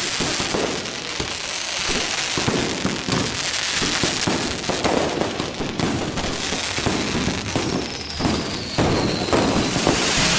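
Dense fireworks barrage: continuous rapid crackling and popping of many shells bursting close together, with a falling whistle about three-quarters of the way through.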